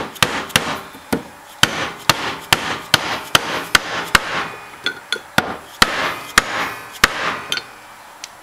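Repeated sharp mallet blows, about two to three a second, on a steel wrist pin used as a driver to tap a new snout seal into an Eaton M90 supercharger's snout. The blows stop shortly before the end, as the seal seats.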